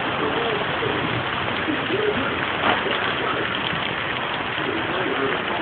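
Heavy rain coming down hard, a steady dense hiss of downpour.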